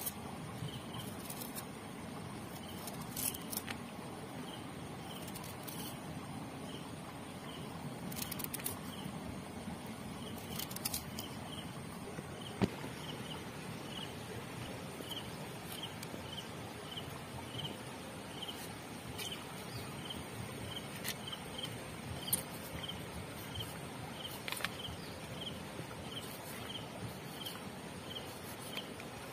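Knife cutting ginger and tomatoes on a banana leaf, with a few sharp clicks as the blade goes through, over steady outdoor background noise. A high short chirp repeats about twice a second through much of it.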